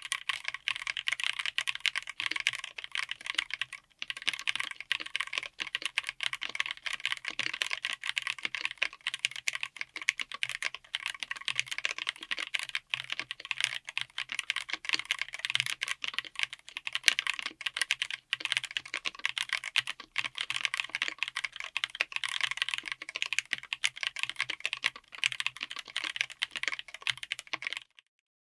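Fast, continuous typing on a 60% mechanical keyboard with Wuque Studio WS Quartz linear switches on an FR4 plate in an aluminium case: a dense clatter of keystrokes that stops abruptly just before the end.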